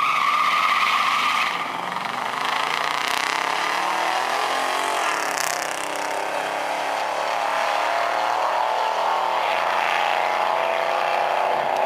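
Drag-race launch: vehicle engines come in suddenly at full throttle and pull hard down the strip, the pitch climbing and then dropping back at each gear change.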